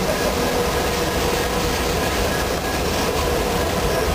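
Freight train's open-top cars rolling past on steel rails: a steady rumble of wheels on track, with faint steady ringing tones over it.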